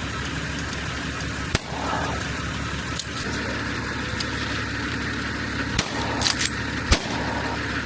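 An engine running steadily at idle, a low even hum, with about six sharp clicks over it, the loudest near the end.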